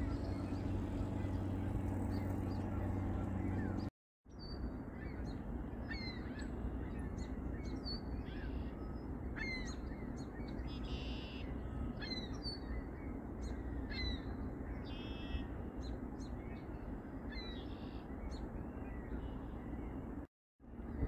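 A steady low mechanical hum for the first few seconds. After a short break it gives way to many birds calling over a low rumble: quick sharp chirps and repeated harsher calls about half a second long.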